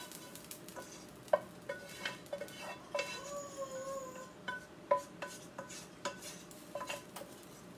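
Wooden spoon scraping and knocking meat mixture out of a frying pan, a run of irregular taps and scrapes that make the metal pan ring briefly. A short wavering tone sounds about three seconds in.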